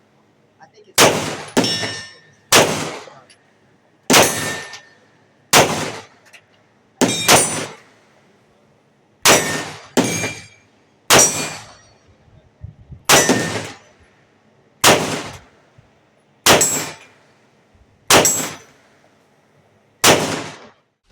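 Taurus G3 9mm pistol fired in slow, steady succession, about fifteen shots one to two seconds apart, some in quick pairs, each sharp report with a short metallic ringing tail.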